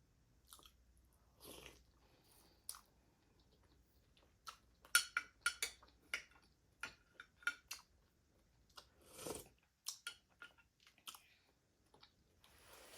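Close-up chewing and lip smacking of smoked meat: irregular short clicks and smacks, busiest from about four to eight seconds in.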